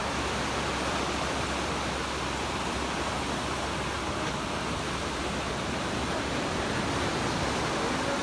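Ocean surf washing onto a beach: a steady, even rush of water noise.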